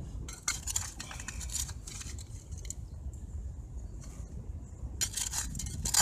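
Gravel and sand being shaken in a plastic gold-prospecting sieve over a plastic basin: stones rattle against the mesh while the fines sift through, classifying the material for concentrate. It comes in two spells, the second starting about five seconds in.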